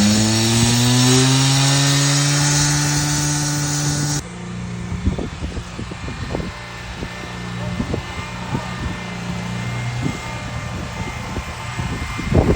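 A small engine revs up and holds at high speed. About four seconds in it cuts abruptly to a lower, steady engine hum with scattered knocks and scraping.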